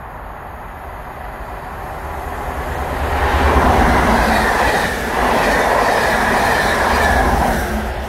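Colas Class 43 HST power cars and their coaches passing close by at speed. The sound swells to a peak about four seconds in, dips briefly, stays loud until just before the end, then fades.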